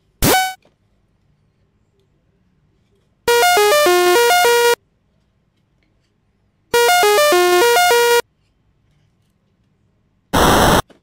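Cartoon-style electronic sound effects: a quick upward-sliding whistle at the start, then a short twinkly electronic jingle of fast stepping notes, played twice, then a brief buzzy blast near the end.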